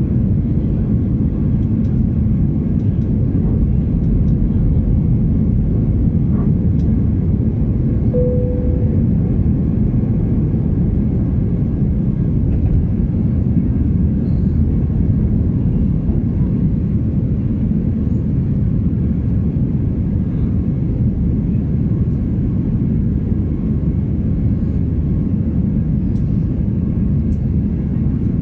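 Airbus A320's engine and airflow noise heard inside the cabin as a steady, deep roar during the climb after takeoff. A brief single tone sounds about eight seconds in.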